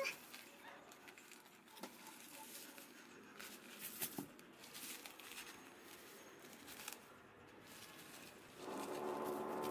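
Faint rustling of cloth and paper with a few small clicks as a newborn kitten is handled on a paper-covered towel. Near the end a cat lets out a long, low, drawn-out call.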